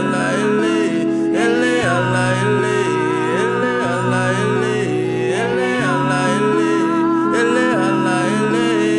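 Slow worship music: sustained pad chords that change about every two seconds, with a wordless melody sliding between notes above them.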